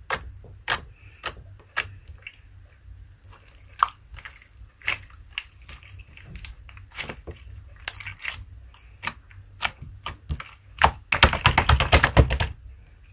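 Clear slime being squeezed and worked by hand, giving scattered sharp popping clicks, then a dense run of rapid crackling pops for about a second and a half near the end.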